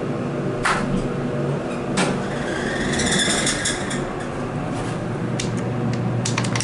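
Montgomery/Otis hydraulic elevator stopping at a floor: a couple of sharp clicks, then the car's sliding doors running open over a steady low hum. More clicks come near the end as the door-close button is pressed.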